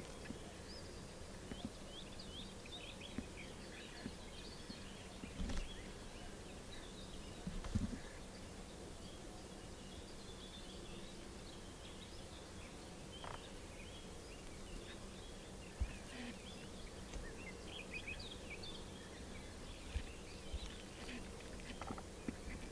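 Small birds chirping and singing faintly in many short, quick notes over a steady low hum, with a couple of brief low thumps on the microphone a few seconds in.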